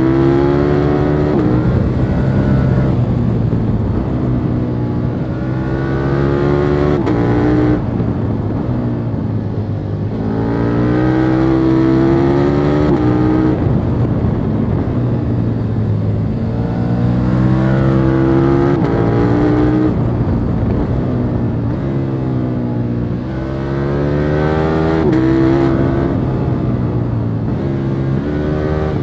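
Stock exhaust of a 2021 KTM 1290 Super Duke R's V-twin, heard from the rider's position under hard acceleration. The revs climb and then fall back several times as the throttle opens and closes between bends, with a few sudden drops where the throttle is shut.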